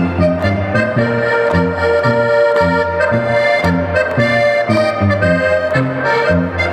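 Live folk dance band music: an accordion plays a steady melody over a regular bouncing bass beat, about two bass notes a second.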